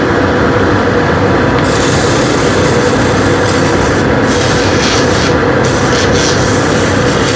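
Vicmarc VL300 wood lathe running with a steady hum while 320-grit sandpaper is held against the spinning turned wood, a continuous rubbing hiss that strengthens and eases several times.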